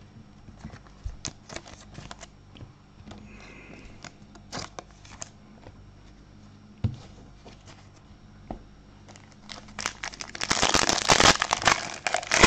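Trading cards and a pack wrapper being handled, with scattered light clicks and rustles. About ten seconds in comes a loud burst of crinkling and tearing as a 2020 Prizm football card pack is ripped open.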